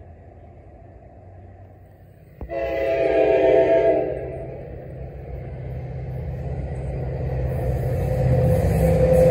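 Train horn sounding one blast of about a second and a half, about two seconds in, over a low rumble; afterwards the train's rumble grows steadily louder as it approaches.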